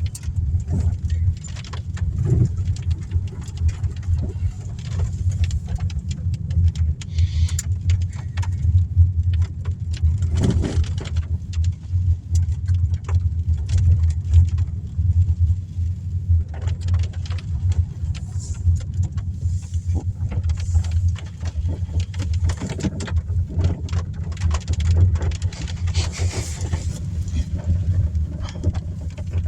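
Car driving on a dirt road in the rain, heard from inside the cabin: a steady low rumble of engine and tyres, with frequent small clicks and taps scattered through it.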